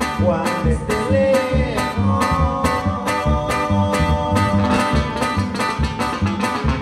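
Live sierreño band playing dance music over a PA: strummed and plucked guitars over a steady, even bass beat.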